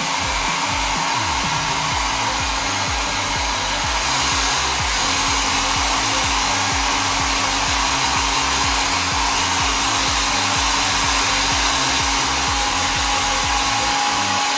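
Nova NV-662 1000-watt foldable mini travel hair dryer running steadily, a continuous rush of blown air with a steady motor hum underneath.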